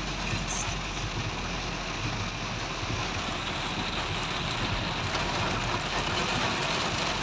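Heavy rain beating on a car's roof and windshield, heard from inside the cabin as a steady, even rush, with the low hum of the idling engine underneath.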